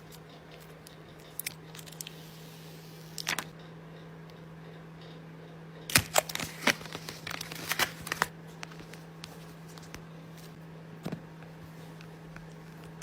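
Hands handling an iPhone box and its packaging: scattered light clicks and rustles, with a quick flurry of sharp taps and clicks about six to eight seconds in. A steady low hum runs underneath.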